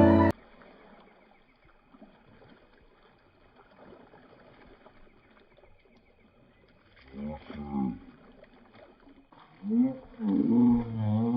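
A piano music bed cuts off at the start, leaving faint outdoor background. Then two long, wavering, throaty calls: a short one about seven seconds in and a longer one from about ten seconds in that runs on.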